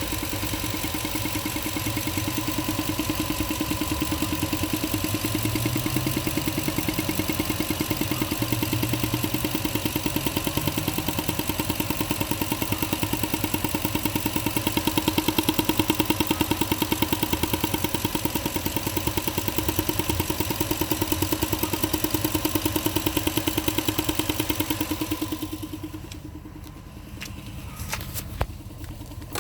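2000 Toyota Tundra's 4.7 V8 idling at a stop with a steady, fast, even pulsing mechanical noise carrying a constant tone; it is an intermittent noise of unknown cause that shows only when the truck is stopped. Near the end the noise fades out as the truck is shut off, followed by a few clicks.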